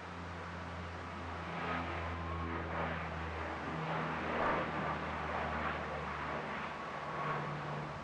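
ATR twin-turboprop airliner's engines and propellers at takeoff power during the takeoff roll and liftoff: a steady low propeller drone with a thin high turbine whine, growing louder over the first couple of seconds.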